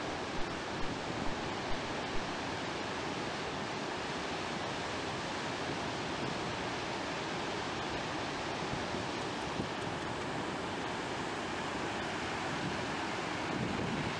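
Glacial meltwater river in full flood, its churning torrent rushing past the banks and bridge piers in a steady, unbroken rush of water.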